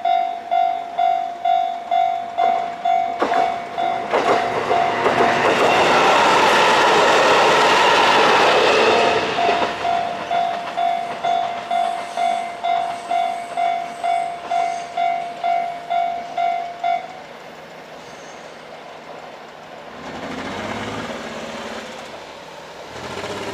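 Japanese level-crossing warning bell ringing about twice a second while a diesel railcar of the JR Kururi Line passes. The train's noise is loudest for several seconds, with sharp wheel knocks as it arrives. The bell stops about two-thirds of the way through, leaving a quieter engine sound near the end.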